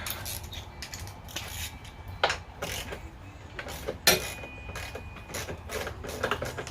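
A socket ratchet on an extension clicking and clinking as it works a bolt loose, with two sharper metal knocks about two and four seconds in.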